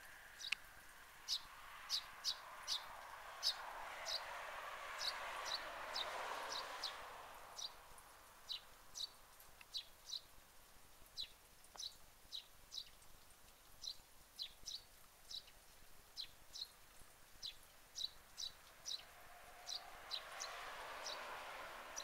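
Eurasian tree sparrow giving a steady series of short, high chirps, about two a second and sometimes in quick pairs. Under them a soft rush of noise swells and fades a few seconds in and rises again near the end.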